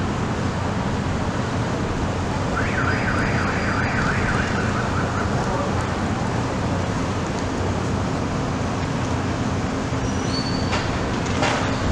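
City street ambience: a steady wash of traffic and street noise. About two and a half seconds in, a rapid warbling chirp repeats for about two seconds, and sharp clicks sound near the end.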